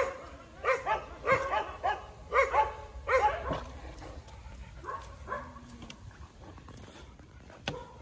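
A dog barking in a quick series of short barks, about seven in the first three and a half seconds, then a few fainter ones around five seconds in: alert barking at something down the slope.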